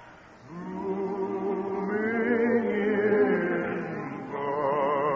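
Operetta singing from an old radio broadcast: voices hold long notes with vibrato, a new phrase beginning about half a second in after a brief dip, and moving to a higher note near the end.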